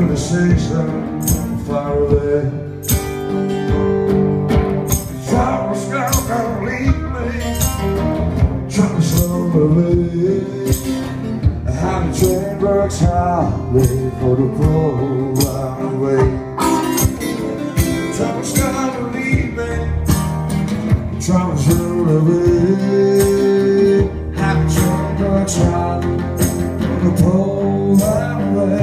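Live blues-rock played on acoustic guitar, strummed in a steady rhythm.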